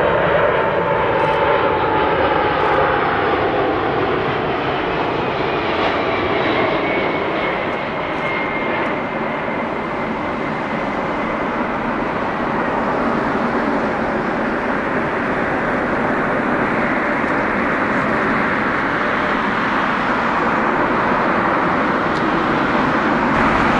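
Jet engines of a Korean Air Cargo Boeing 747-400 freighter landing: a loud steady roar with a whine that falls in pitch over the first several seconds as the jet passes low, and the roar swells a little again near the end.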